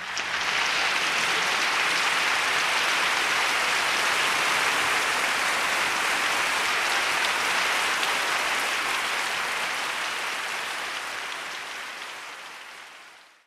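Dense, steady rushing noise with no tune or tone in it, coming in suddenly at the start and fading away over the last few seconds.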